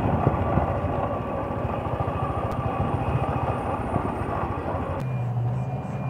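Heavy tipper truck driving along, its engine running under a dense, rough rumble of road and wind noise. About five seconds in the sound changes abruptly to a steadier, lower engine hum.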